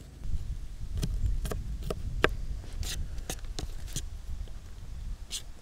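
Kitchen knife mincing a garlic clove on a cutting board: a string of sharp, irregular taps, about two or three a second, over a low steady rumble.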